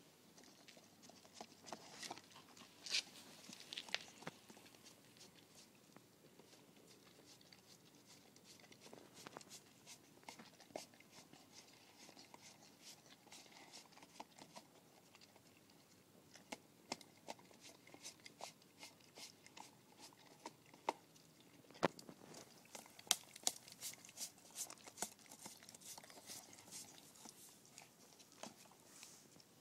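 A dog licking yogurt out of a hand-held yogurt tub: faint, quick wet smacks and clicks of its tongue in the tub, coming in bursts and growing denser near the end.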